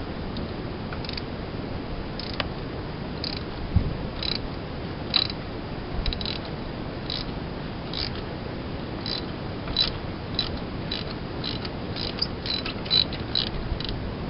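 Socket ratchet clicking on its back-swings while unscrewing a spark plug with a 5/8 spark plug socket. Single sharp clicks come about once a second, closer together near the end.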